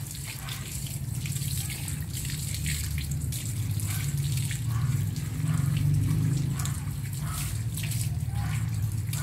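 Water running from a garden hose over a wet dog's coat, with scattered splashes and drips, over a steady low rumble.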